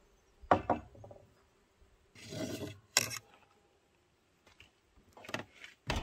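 Knocks and a scrape on a wooden picnic table as tableware is set down and someone sits at it: a couple of knocks early on, a rubbing scrape of nearly a second, a sharp knock, then more knocks near the end.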